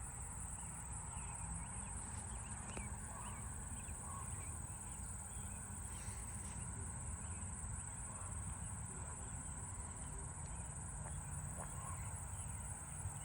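Insects trilling steadily in tall weeds, a continuous high-pitched shrill, with faint scattered bird chirps over a low background rumble.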